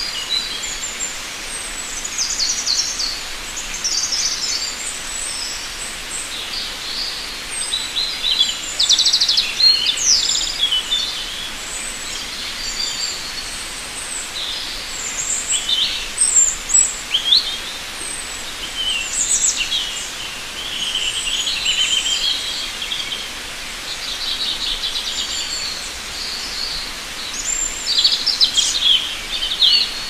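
A chorus of small songbirds chirping and trilling, many short high calls overlapping over a steady hiss, busiest in a few clusters.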